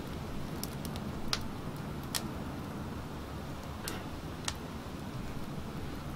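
Wood fire of twigs and branches burning in a metal drum, crackling with a handful of sharp, irregular pops over a steady low rumble.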